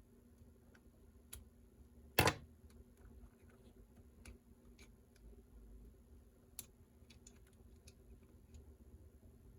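Light, scattered clicks and ticks of a small screwdriver and tiny parts being handled while taking apart a mini RC crawler's drivetrain. A louder short clack comes about two seconds in, and a sharper click comes about six and a half seconds in.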